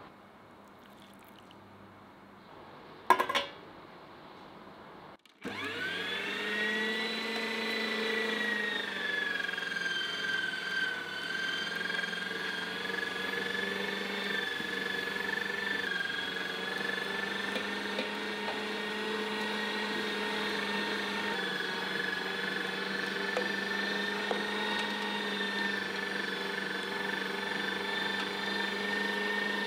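A sharp knock, then about five seconds in a kitchen appliance's electric motor starts and runs steadily with an even whine, its pitch dipping slightly a few seconds after it starts.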